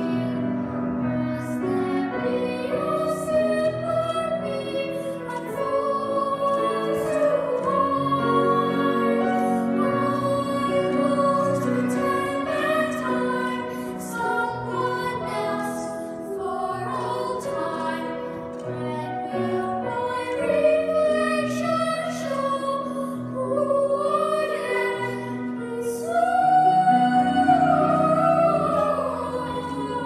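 Young girls' voices singing a slow song together, holding long notes with vibrato, several parts sounding at once; the singing swells loudest near the end.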